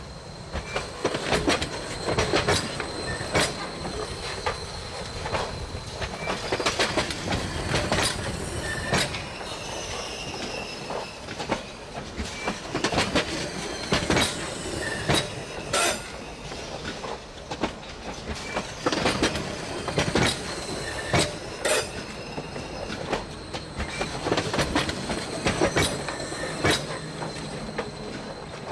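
Heavy freight train's steel wheels slamming over a bad rail joint: groups of sharp bangs every few seconds as each car's wheel sets cross the gap, over a steady rolling rumble with a thin wheel squeal. The hammering is the sign of a worn, battered or low rail joint.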